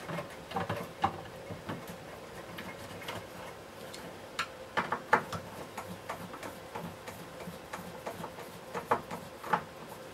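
Light, irregular clicks and taps of a screw being fitted by hand into the plastic motor housing of a Hoover Junior 1346A vacuum cleaner, with a few sharper knocks around five seconds and nine seconds in.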